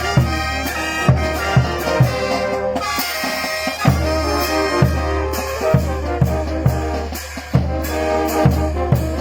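Brass band music: trumpets and other brass playing over a steady bass-drum beat of about two strokes a second.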